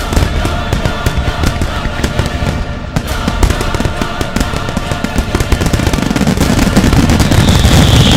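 Dense barrage of aerial firework shells bursting in rapid succession, with music playing underneath; the bangs grow denser and louder over the last few seconds.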